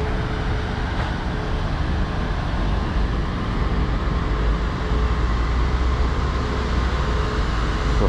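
Large coach bus idling: a steady low engine rumble with a faint hum, swelling a little from about three seconds in.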